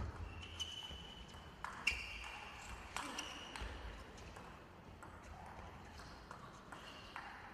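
Table tennis rally: the plastic ball clicking off the bats and bouncing on the table in an uneven back-and-forth, with a few short high squeaks between the hits.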